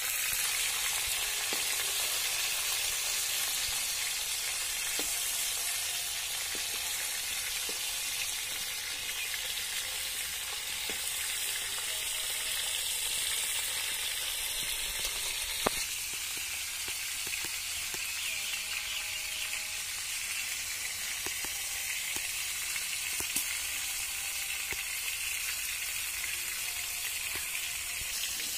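Pangas fish pieces sizzling steadily in hot oil in an iron kadai, with a metal spatula now and then scraping and tapping the pan. One sharp clink about halfway through.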